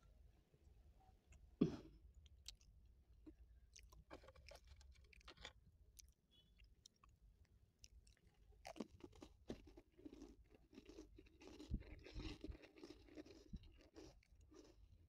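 Close-up crunching and chewing of a dry Marie biscuit. There is a single sharp click about two seconds in, then scattered crisp crunches, and denser chewing crunches from about the middle to near the end.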